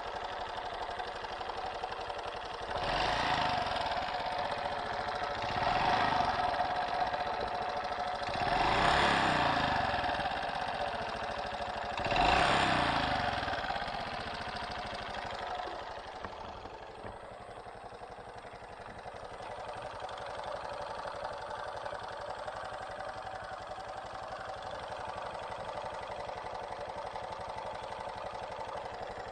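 Honda Super Cub JA07's single-cylinder engine running with a clattering noise, revved up four times in the first half and then settling back to idle. The owner suspects a loose screw inside the engine.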